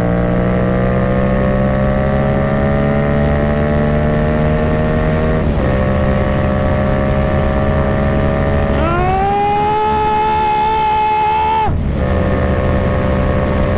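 Yamaha MT-07's 689 cc parallel-twin engine pulling hard in fifth gear at high speed, its pitch slowly climbing as the bike accelerates, over heavy wind rush. The engine note dips briefly about five and a half seconds in. A strong high tone sweeps up about nine seconds in and holds until it cuts off suddenly near twelve seconds.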